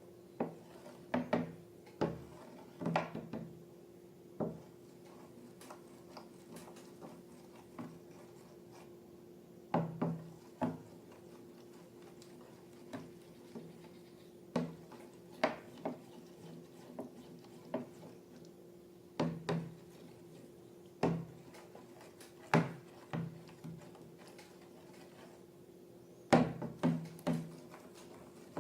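Irregular sharp clicks and knocks of objects being handled and set down, often two or three in quick succession, over a steady low hum.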